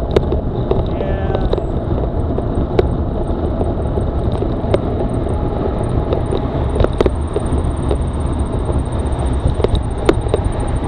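Steady wind and road noise from a bicycle ride, with scattered clicks and rattles from the bike.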